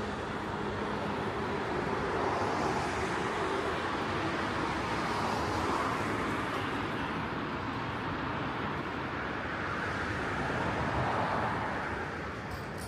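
Road traffic on a city street: cars passing, their tyre and engine noise swelling and fading a few times.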